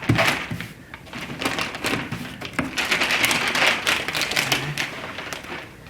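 Self-adhesive contact paper crackling and rustling as it is handled and smoothed by hand onto cardboard, with many small quick crackles and taps.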